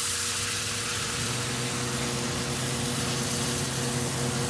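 Food sizzling as it fries in a pan, a steady hiss, with a steady low mechanical hum underneath that gets stronger about a second in.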